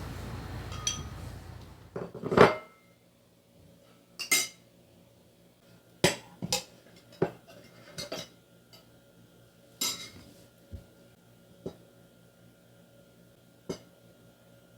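Dishes and cutlery being handled: a string of separate clinks and knocks, about ten in all, each one sharp and brief. A steady rushing noise runs underneath at first and cuts off about two seconds in.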